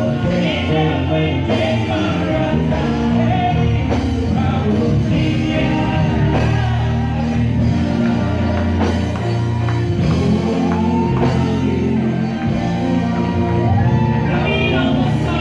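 Live gospel song through a PA: women singing the melody into microphones with backing singers, over sustained keyboard chords and bass.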